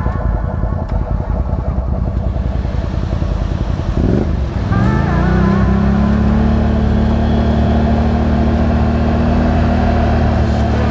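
Can-Am Outlander 570 ATV's V-twin engine chugging at low revs, then revving up about four seconds in and holding steady, higher revs.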